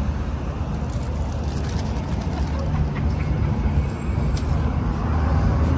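Crunching of a crisp marquesita, the rolled wafer crepe, being bitten and chewed: a run of sharp crackles about a second in and more scattered ones later, over a steady low rumble.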